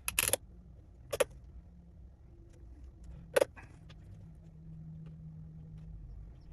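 Small hard parts being handled on a workbench: a brief clatter of sharp clicks at the start, then single sharp clicks about a second in and about three and a half seconds in, over a faint steady low hum.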